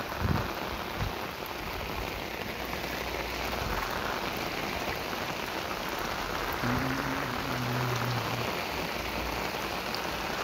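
Rain falling steadily on floodwater covering a paved road, an even hiss of drops on the water's surface, with a brief low hum about two-thirds of the way in.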